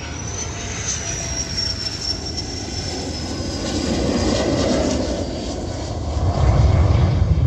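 F-16 fighter jet's turbofan passing low: a high engine whine rises a little, then slowly falls in pitch, while the deep jet roar builds, loudest near the end.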